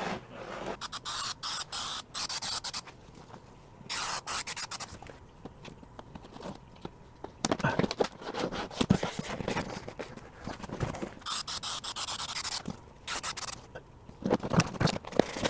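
Hands rubbing and pressing a thin plastic liner sheet against the foam walls of a styrofoam ice chest, making intermittent rubbing and scraping swishes with crinkly ticks, as the glued sheet is smoothed into place.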